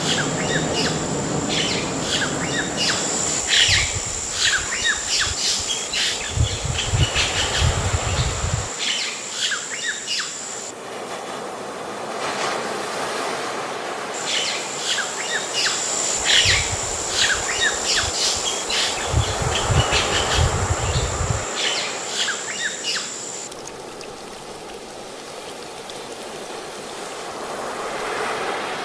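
Birds chirping rapidly over a steady rushing background, with a thin high steady tone above them. The same passage plays twice with a quieter stretch between, as in a repeated recording.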